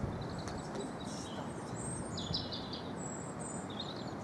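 Small birds chirping in a few short phrases over a steady background rush.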